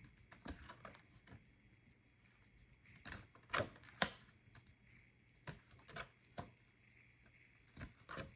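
Faint, irregular clicks and taps, about ten of them, the loudest a few seconds in, against quiet room tone.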